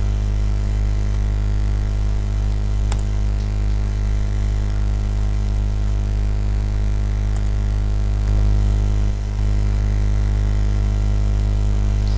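Steady electrical mains hum, a low drone with a stack of evenly spaced buzzing overtones. A few faint keyboard clicks come now and then.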